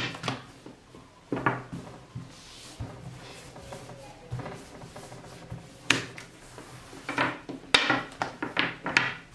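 A long thin wooden rolling pin (oklava) rolling out a sheet of baklava dough (yufka) on a floured table. The dough is wrapped round the pin and pressed and rubbed back and forth in irregular strokes, which come quicker in the last few seconds.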